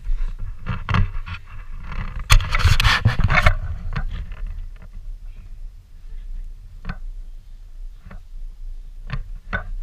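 Wind buffeting a body-worn action camera's microphone with a steady low rumble, and handling noise from the camera rubbing and scraping against clothing, loudest between about two and three and a half seconds in, followed by a few scattered clicks and knocks.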